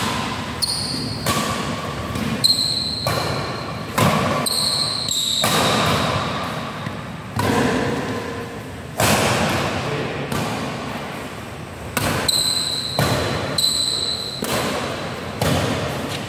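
Badminton rackets hitting a shuttlecock in a doubles rally, sharp smacks every second or so that echo through a large hall, mixed with short high squeaks of court shoes on the floor.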